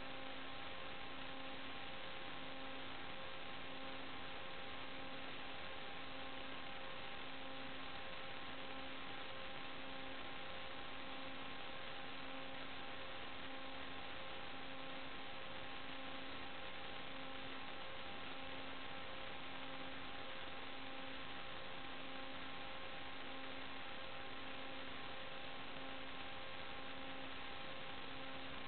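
Steady electronic hiss and hum with several thin steady tones, the lowest one pulsing about once a second. This is the noise of an analog video receiver's audio channel that carries no sound of its own.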